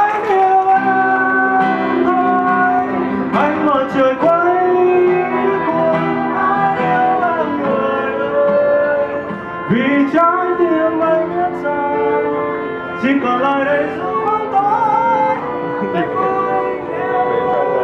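A man singing a Vietnamese ballad into a microphone, amplified, backed by acoustic guitar, violin and electric keyboard.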